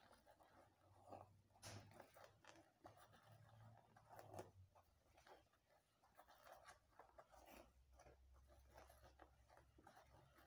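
Near silence, with faint scratchy rustling of fingers working and braiding hair and a faint low hum underneath.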